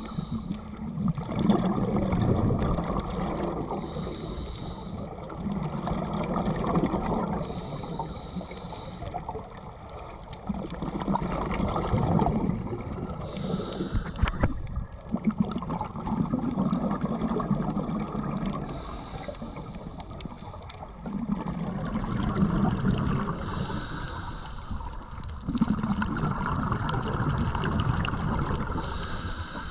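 Scuba diver breathing through a Scubapro regulator underwater, heard close to the camera. Each breath is a short hiss of inhaling through the second stage, then a longer, louder bubbling rush of exhaled air, about one breath every four to five seconds.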